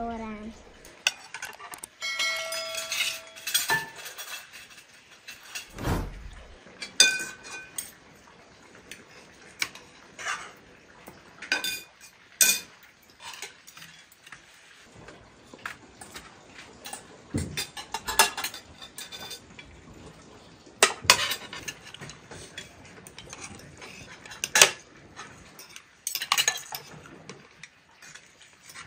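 Cutlery clinking and scraping against dishes and a pan, in scattered sharp knocks, some with a short metallic ring.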